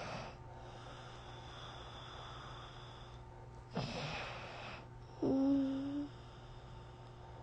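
A person's snoring breaths over a steady low hum: a noisy breath about four seconds in, then a short snore held on one pitch a second later.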